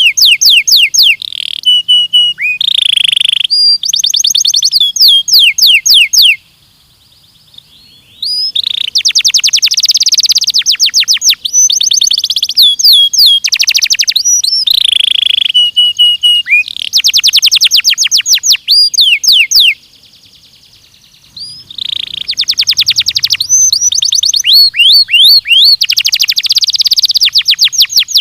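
Belgian canary singing in rapid trills of quickly repeated high notes, phrase after phrase, with two breaks of about two seconds.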